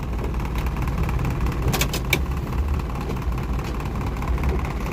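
Vehicle engines idling in stopped traffic, a steady low hum under road noise, with two short sharp clicks about two seconds in.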